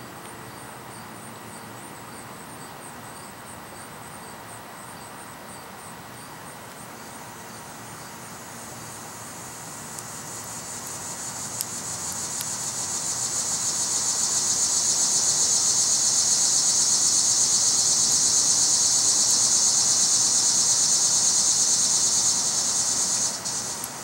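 Insects calling: a faint, evenly repeating high chirping, then a loud high-pitched buzz that swells from about ten seconds in, holds steady, and stops abruptly near the end.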